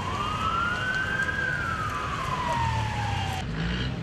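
A siren wailing in one slow rise and fall of pitch that cuts off abruptly about three and a half seconds in.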